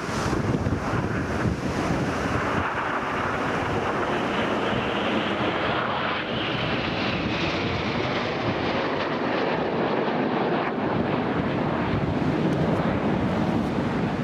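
Jet noise from a formation of nine BAE Hawk T1 jets flying past, with a whine that falls in pitch about halfway through, heard over heavy wind buffeting on the microphone.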